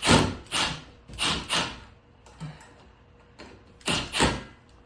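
Short knocks and scrapes of metal parts being handled while screws are refitted into a ceiling fan's mounting. They come in two clusters: four in the first second and a half, then two more about four seconds in.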